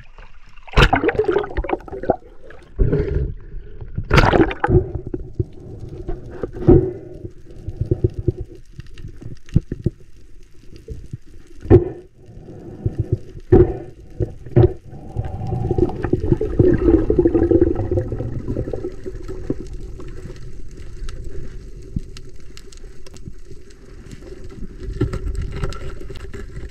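Underwater sound picked up by a submerged action camera: sloshing and several sharp knocks and splashes as it goes below the surface, settling into a steady, muffled low underwater drone.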